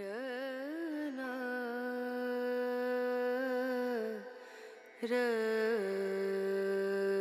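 Background music: a voice humming long held notes that waver slightly, in two phrases with a short break about four seconds in.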